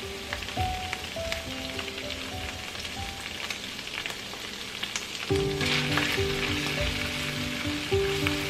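Doubanjiang chili bean paste and garlic sizzling in hot oil in a frying pan; the sizzle swells for a moment about six seconds in. Background music plays throughout and gets louder about five seconds in.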